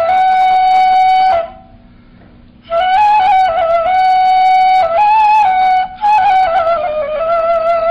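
Ney, the end-blown reed flute, playing a slow melody of long held notes with small ornamental turns. It breaks off for about a second after the first phrase, then goes on.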